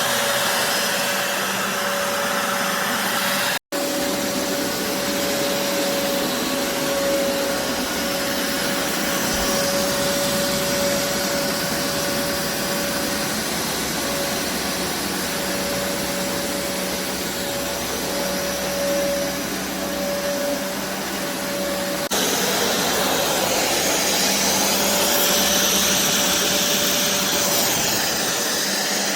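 BISSELL Revolution HydroSteam Pet carpet cleaner's suction motor running steadily, with a steady whine over the rush of air. It cuts out for an instant about four seconds in, and its sound shifts about 22 seconds in.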